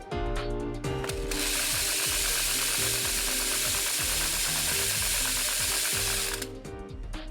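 Gear case of a Musou Twin Blade TWB-230 twin-blade brush-cutter attachment running with a harsh, rapid rattling noise for about five seconds, starting about a second in and stopping suddenly: the abnormal gear-case noise of the fault being treated. Background music plays throughout.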